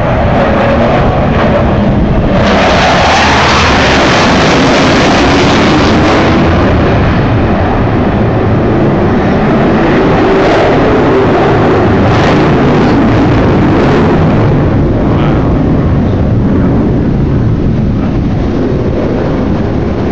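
Jet roar of a Blue Angels F/A-18 Hornet passing low: it surges about two seconds in with a falling sweep in pitch, stays loud for several seconds, then eases slightly as it moves away.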